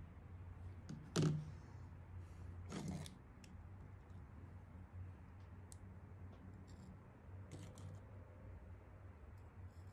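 Faint hand-handling noises of a valve and a tube of valve grinding compound over an aluminium cylinder head: scattered small clicks and rustles, with a louder brief scrape about a second in and another just before three seconds.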